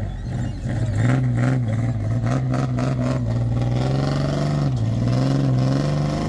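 A four-wheel-drive vehicle's engine running on the throttle, its pitch holding steady, then dipping and rising again near the end. A few knocks are heard about a second in.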